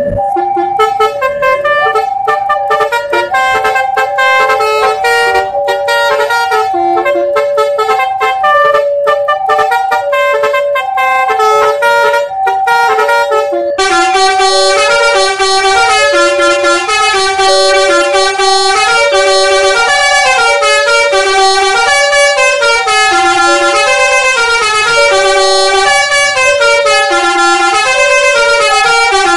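Railway level-crossing warning bell: an electronic chime alternating between two tones over and over without a break. About 14 seconds in, the pattern becomes busier and fuller in its upper notes.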